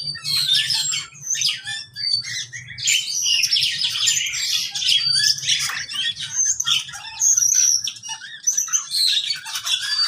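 Dense chorus of many caged birds of mixed species, lovebirds and a cockatiel among them, chirping and squawking over one another in a crowded series of short, high calls.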